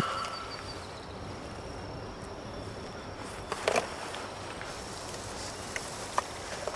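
Quiet forest ambience: a steady faint hiss with a few sharp clicks, the loudest about three and a half seconds in and two smaller ones near the end.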